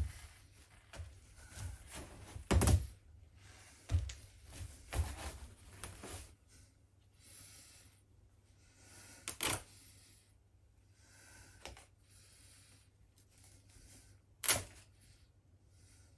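Work boots stomping on a stuffed plush toy on a tarp-covered floor: irregular dull thuds, the loudest about two and a half, nine and a half and fourteen and a half seconds in, with softer rustling of plastic tarp and fabric between them.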